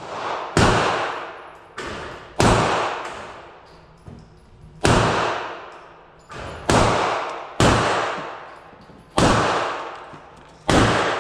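Gunshots at an indoor shooting range: about eight loud shots at irregular intervals, with a few fainter ones among them, each followed by a long echo off the range walls.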